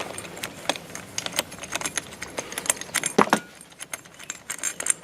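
Hand tools and small metal parts clicking and clinking irregularly while a string trimmer's carburetor cover and carburetor are unbolted, with a louder clink about three seconds in.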